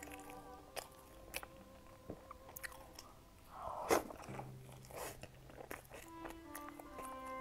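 Close-miked eating of a pastry: wet mouth clicks, then one loud crunching bite about four seconds in and a softer one about a second later, followed by chewing. Quiet background music plays underneath.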